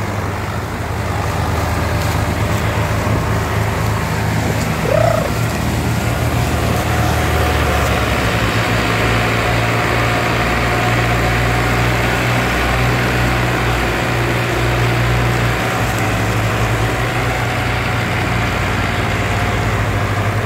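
Diesel tractor engines running under heavy load, towing a trolley piled high with sugarcane; the engine note shifts about eight seconds in. A brief high call that rises and falls sounds once about five seconds in.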